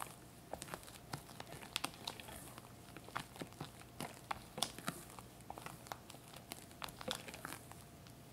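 Silicone spatula stirring and scraping thick whipped chocolate cream against a glass bowl, with irregular soft clicks and squelches.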